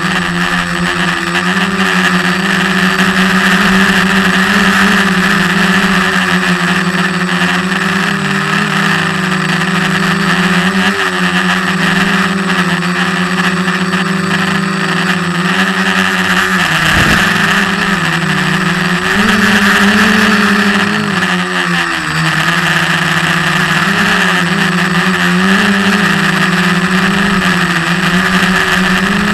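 SK450 quadcopter's brushless motors and propellers buzzing loudly in flight, picked up by the camera on its own frame. The pitch wavers up and down with throttle changes, dipping briefly about seventeen seconds in and again a few seconds later.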